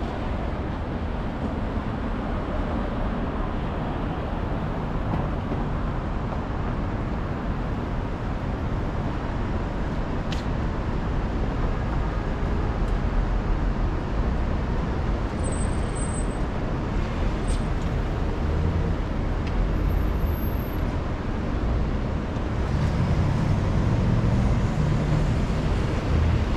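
City street traffic: cars and buses running past, a steady wash of engine and tyre noise that grows louder for a few seconds near the end. A brief high squeal sounds a little past halfway.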